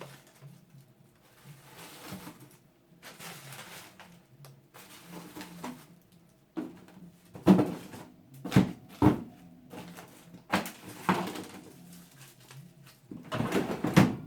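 Food packages and containers being handled and set into a refrigerator: soft rustling at first, then several sharp knocks and clacks of containers against shelves and drawers in the second half.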